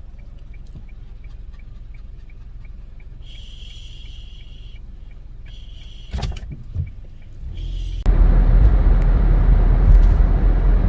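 Inside a car: a low engine hum with regular light ticks about two and a half times a second, and a few short high beeping tones. About eight seconds in, a sudden loud rush of road and wind noise comes in and covers everything.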